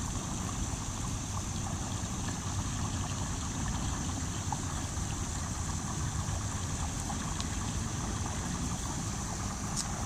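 Wind rumbling on the microphone, over a steady high-pitched hiss, with a few faint ticks.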